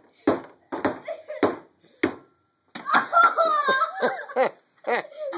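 A hammer striking a cell phone on a wooden workbench: about five quick blows in the first two seconds and one more near the end. In between there are excited voices and laughter.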